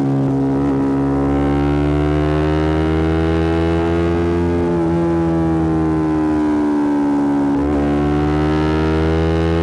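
Yamaha R125's single-cylinder four-stroke engine through a Black Widow aftermarket exhaust, ridden under way. The exhaust note climbs steadily for about five seconds, then eases and sinks. About seven and a half seconds in, the note breaks briefly before climbing again.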